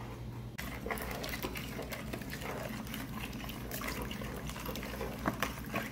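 A metal spoon stirring cherry pie filling in a plastic bowl: a steady wet squelching and sloshing that starts about half a second in, with small clicks as the spoon knocks the bowl.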